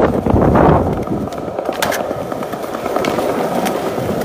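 Skateboard wheels rolling on stone paving slabs: a steady rumble, loudest in the first second, with a few faint clicks.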